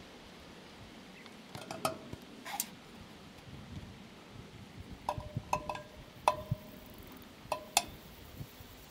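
Sharp clicks, each with a short ringing tone after it: two near two seconds in, then a cluster of five later on, over a faint steady background.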